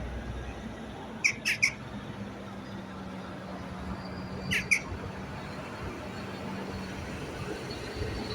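Crow calling in short squawks: three quick calls about a second in, then two more a few seconds later, over steady city traffic hum.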